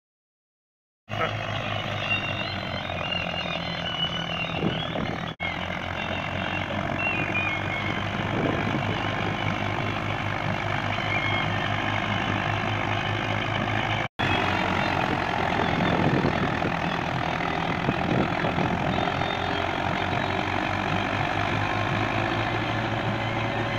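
Belarus 510 tractor's diesel engine running steadily under load while it pulls a working straw reaper through wheat stubble, with the reaper's machinery adding a dense whirring. The sound starts about a second in and cuts out briefly twice.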